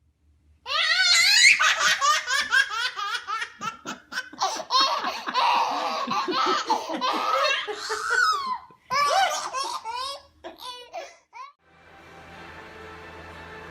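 A baby laughing hard: long runs of high-pitched belly laughs that stop about eleven seconds in, followed by a quieter steady hum.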